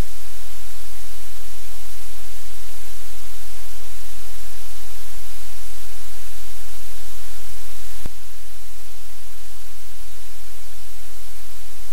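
A steady, loud hiss like static, with a low hum beneath it. A single click comes about eight seconds in, after which the hiss is slightly quieter.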